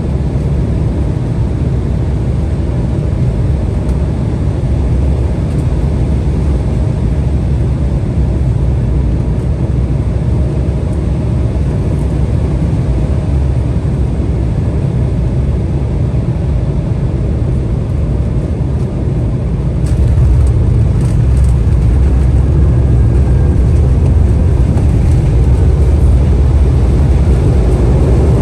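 Cabin noise inside an Embraer 175 in flight: a steady low rumble of airflow and its CF34 turbofan engines. It gets louder about two-thirds of the way through, with a few faint clicks at that point.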